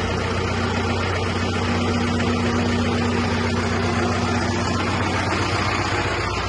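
John Deere 5090 tractor's diesel engine idling steadily at low revs, just under 1000 rpm.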